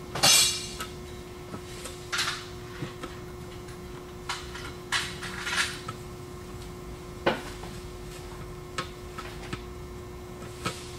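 Metal transmission oil pan clanking and scraping against the case as it is shifted into line, with a sharp clank just after the start and a few more clatters. Near the end come light clicks as the pan bolts are started by hand with a speed handle.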